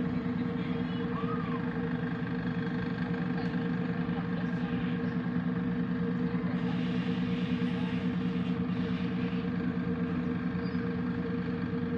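Boat engine running at a steady drone, heard from on board, with a constant low hum and overtones. A brief rise of hiss comes about seven seconds in.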